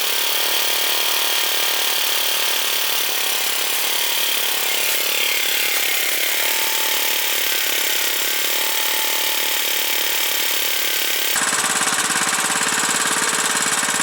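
A 1987 Honda lawnmower's small engine running steadily. About eleven seconds in, the sound turns abruptly louder and deeper, with a rapid pulsing beat.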